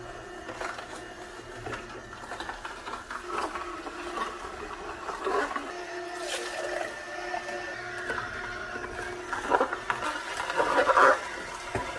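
Vertical slow juicer running, its auger crushing apple and carrot pieces with a steady grinding hum and irregular crunching and squeaking. The crunching gets louder near the end as fresh pieces go in.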